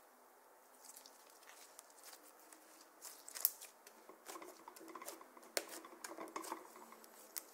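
Slime being handled and pressed against a tabletop, giving sharp sticky clicks and crackles. They are sparse at first and come thick and fast over the last four seconds.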